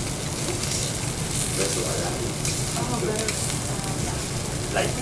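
Food sizzling on a hot teppanyaki steel griddle, a steady hiss and crackle of frying, with a short tap about near the end.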